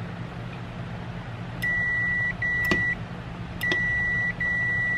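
Multimeter continuity beeper giving a steady high beep twice, each about a second long with a brief dropout, as the foot switch's normally open contacts close under the pressed pedal. Sharp clicks of the pedal's switch come between and at the end of the beeps.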